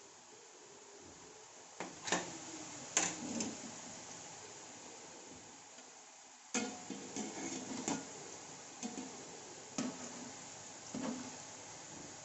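A metal utensil knocking and scraping against a pan of frying sev, about ten irregular clinks, over a faint steady hiss of the coconut oil frying.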